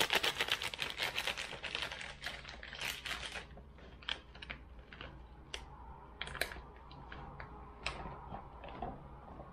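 Crinkling and crackling of thin plastic food packaging being handled for the first few seconds, thinning out into scattered light clicks and taps of plastic containers.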